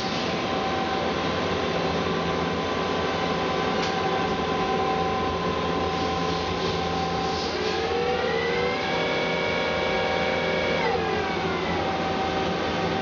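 2006 Mazak QTN-200MS CNC lathe running with its chuck spinning: a steady machine hum with several whining tones. About eight seconds in, a whine rises in pitch, holds for about two seconds, then falls back about eleven seconds in.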